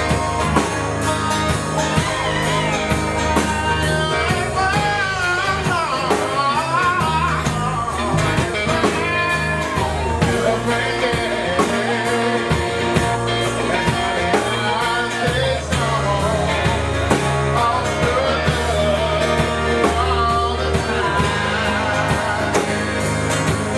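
Live band playing a slow country-blues ballad: guitar with a wavering, bending lead melody over a steady bass line.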